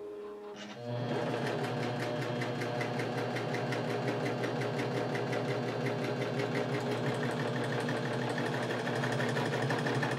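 Husqvarna Viking Huskylock s25 serger running steadily on a four-thread overlock stitch, sewing a test seam on a fabric swatch right after threading. It comes up to speed about a second in and keeps a rapid, even stitching rhythm.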